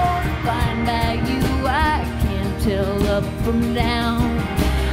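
A live band plays an indie rock song on electric guitars, one of them a Fender Mustang, over a steady beat.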